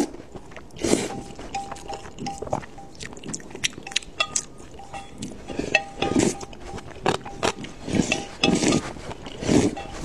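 Noodles being slurped from a bowl of spicy broth in close-up: repeated wet slurps every second or so, with moist chewing. Sharp clicks of chopsticks against the metal bowl come in between.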